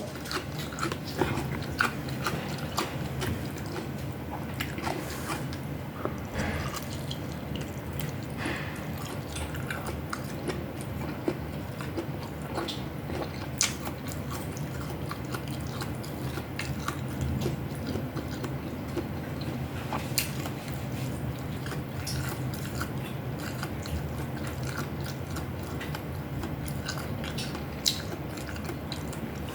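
Close-miked chewing and biting of food, with many small scattered mouth clicks over a steady low hum.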